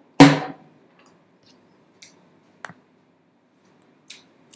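One short, loud sound right at the start, then four faint, sharp clicks scattered about half a second to a second and a half apart.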